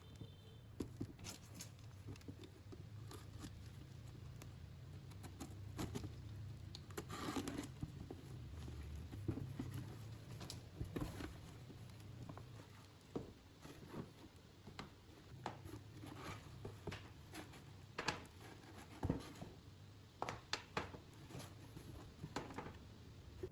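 Faint, irregular light taps, clicks and rustles of hand work, over a low steady hum.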